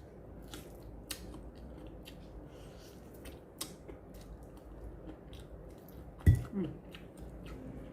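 Eating sounds: scattered small clicks and smacks of chewing and utensils, with a louder knock about six seconds in, followed by a brief hum of the voice.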